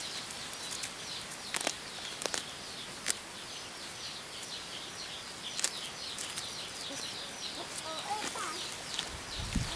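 Many small birds chirping and twittering steadily, with a few sharp clicks and a short warbling call about eight seconds in.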